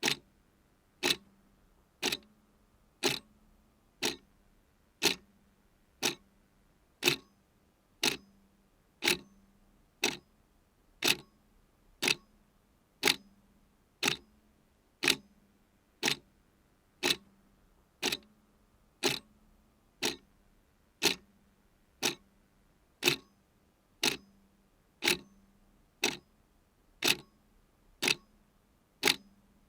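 Clock ticking steadily once a second, each tick a sharp click, every other one a little louder in a tick-tock pattern.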